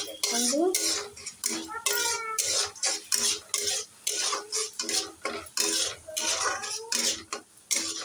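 A long-handled steel spatula stirring and scraping a thick frying masala around a steel kadai. The scrapes and clinks of metal on metal come in quick repeated strokes, with the pan ringing.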